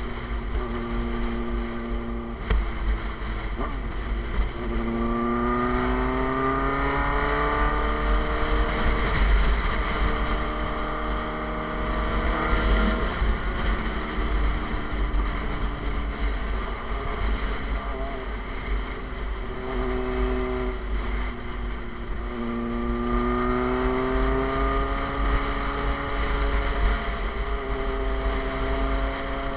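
Suzuki GSX-R sport bike's inline-four engine running through an aftermarket SC Project exhaust while riding. The engine note rises as the bike accelerates about five seconds in and again past twenty seconds, and holds steadier in between, over a steady rush of wind on the microphone.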